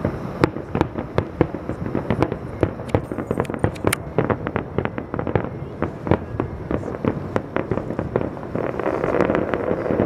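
Fireworks display: a rapid, continuous string of sharp crackling reports, many cracks a second, with a thicker steady rumble building near the end.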